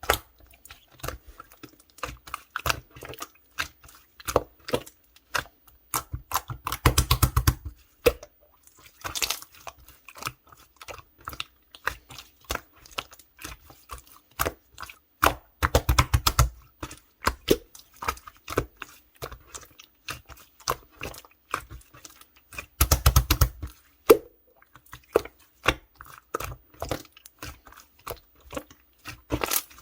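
Clear slime being squished and poked by hand, making sticky clicks and small air-bubble pops, with three spells of fast popping about 7, 16 and 23 seconds in.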